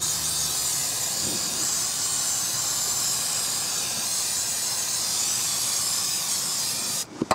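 Aerosol brake cleaner spraying in one long continuous hiss into a manual gearbox's clutch bellhousing, washing clutch dust off the release bearing and input shaft. It cuts off near the end, followed by a short click.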